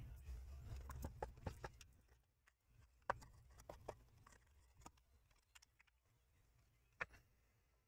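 Faint scattered clicks and taps as hands handle the pump block of a Corsair iCUE H100i Elite AIO cooler, with a low rumble of handling during the first two seconds. The sharpest clicks come about three seconds in and again about seven seconds in.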